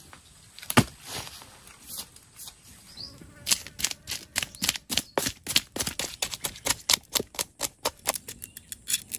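Knife scaling a large freshwater fish on a log: quick scraping strokes of the blade against the scales, several a second, from about three and a half seconds in. A single sharp knock comes just under a second in.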